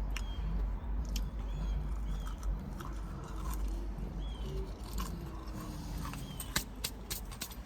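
Close-miked chewing of fried takeout food, with wet mouth sounds and scattered sharp crunchy clicks.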